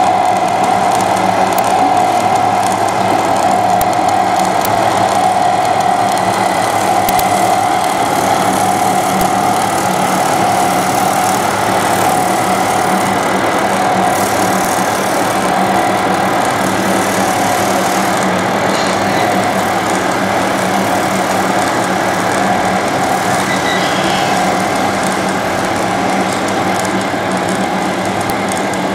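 Radio-controlled model road rollers and construction machines running: a steady, even engine drone that holds without change.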